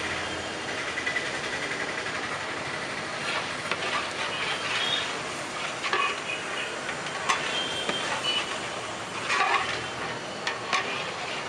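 A long metal spatula stirring thick masala in a large aluminium cooking pot, scraping and knocking against the pot now and then, over a steady rushing background noise.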